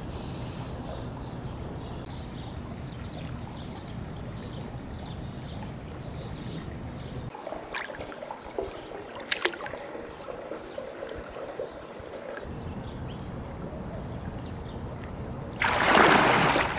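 Swimming-pool water: light splashing in the middle with a few sharp splashes, then a loud splash near the end as a swimmer strokes through the water.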